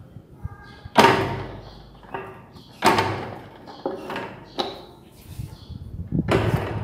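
Four sharp metallic clunks, about two seconds apart, as the wheel hub and mechanical drum brake on an electric-car rear axle are worked by hand.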